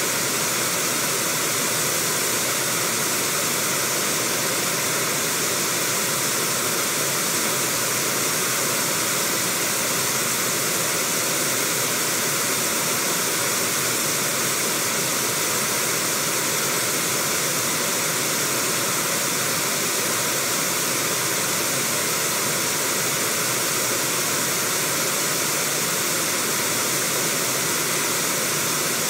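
River rapids rushing steadily over rocks: a constant, even hiss of white water.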